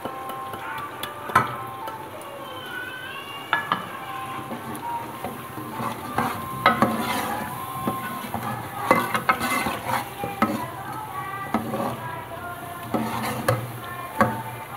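A metal ladle stirring and scraping goat meat and onions in an aluminium pot, with irregular knocks against the pot's sides. The meat and freshly added ground spices sizzle as they are fried down (bhuna).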